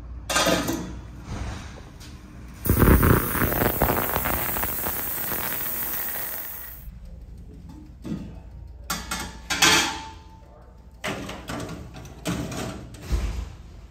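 Stainless steel cleaning tank and its wire parts basket being handled: metal sliding, clanking and knocking, with a loud hiss a few seconds in that lasts about four seconds and fades. The clanks come in a string near the end.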